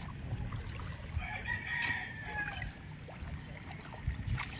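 A rooster crows once, starting about a second in and lasting about a second and a half, over the sound of bare feet stepping through shallow water and mud.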